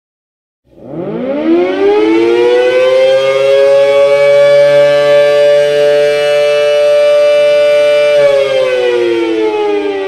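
A siren winds up after a moment of silence, rising in pitch to a steady, loud wail sounding two pitches together. It holds there for several seconds, then begins to wind down slowly near the end.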